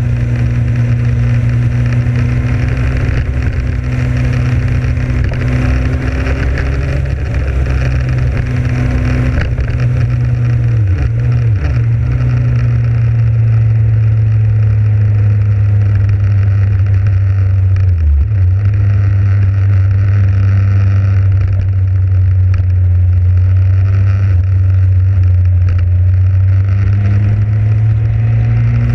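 Motorcycle engine running at a steady cruising speed over a constant rush of wind. Twice in the middle the engine note drops briefly and then picks up again.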